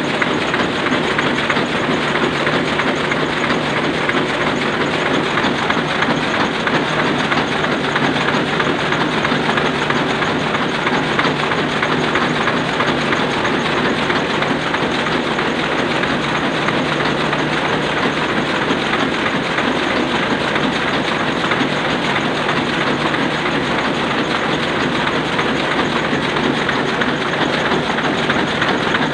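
Sakurai Oliver 66 sheet-fed offset printing press running steadily, a dense, unbroken mechanical noise that neither starts nor stops.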